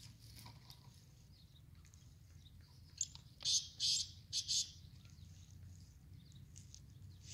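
Black francolin calling: a short harsh run of four or five scratchy, high-pitched notes about three seconds in, over a low steady rumble.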